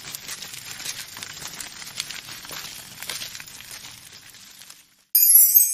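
Railway track repair machine working along the ballast: a steady crackling, rattling hiss of stones and grit with many small clicks and little engine note. It fades and cuts out just before the end, where a short, bright, high-pitched burst of sound follows.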